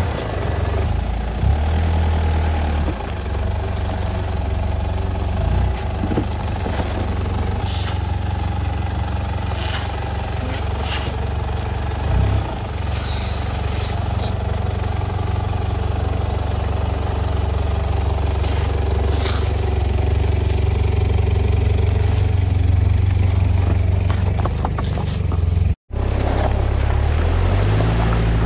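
A vehicle engine running steadily with road noise while driving. About 26 s in the sound cuts off sharply, then an engine note rises near the end.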